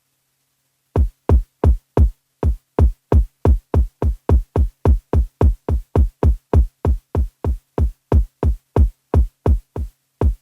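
Electronic kick drum sample from an Akai Force sampler, played over and over about three times a second. It starts about a second in, and each hit is a deep thump that drops in pitch.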